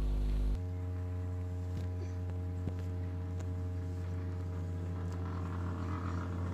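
Steady electrical mains hum on the lapel microphone, dropping slightly about half a second in. Faint clicks and rustles come from hair being gathered up by hand.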